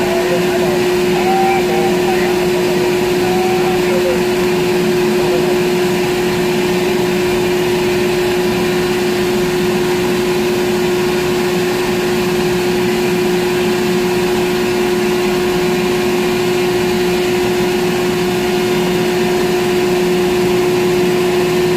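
Ship's deck crane machinery running steadily, heard from inside the operator's cab: an even hum with one strong constant tone that holds its pitch throughout.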